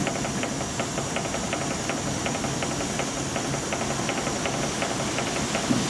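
Steam launch's engine running, with an even, quick ticking of about five beats a second over a continuous hiss of steam escaping from its lowered funnel.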